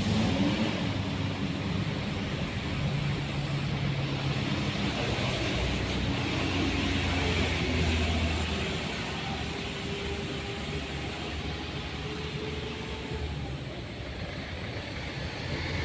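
Motor vehicles passing on a road, a steady traffic noise with engine tones that slowly rise and fall as they go by.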